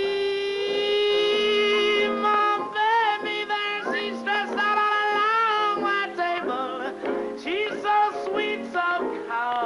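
Jazz recording, instrumental part before the vocal: a long held note, then a melody line that bends and wavers in pitch over a band backing.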